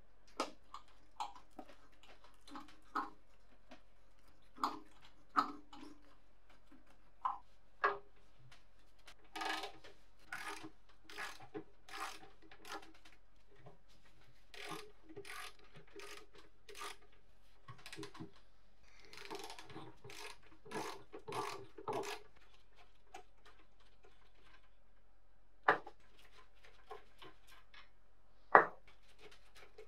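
Ratchet wrench clicking in runs of quick, even strokes as a bolt is worked out of a rusted steel hinge block, after scattered scraping and tapping of a metal pick in a screw head. Two sharp knocks near the end are the loudest sounds.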